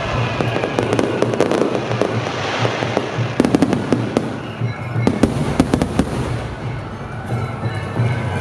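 Starmine fireworks barrage: a dense run of shell bursts and crackling stars, with the sharpest cracks clustered in two spells around the middle, over music.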